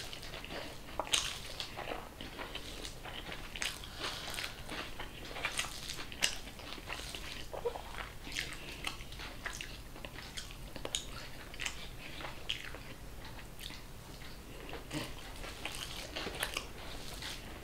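A person chewing food close to the microphone, with fingers mixing and pressing rice on a plate: a steady run of small irregular clicks and mouth sounds.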